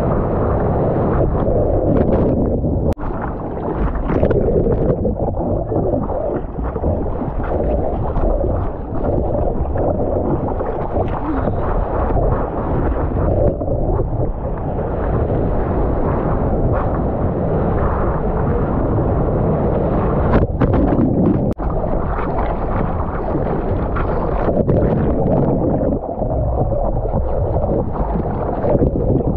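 Whitewater rushing and splashing against a surfboard as it rides a small breaking wave, heard from a camera mounted on the board, with wind buffeting the microphone. The sound is dull and muffled, with a few sharp clicks.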